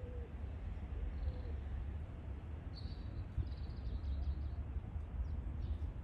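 Birds calling over a steady low rumble: a low rising-and-falling call repeated about every 0.7 seconds for the first second and a half, then thin high chirps from about three seconds in.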